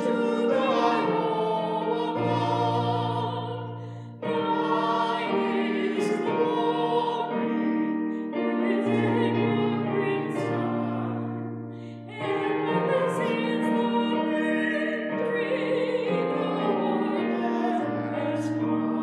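A hymn sung with keyboard accompaniment. It comes in phrases of about four seconds, with held notes over a sustained bass line.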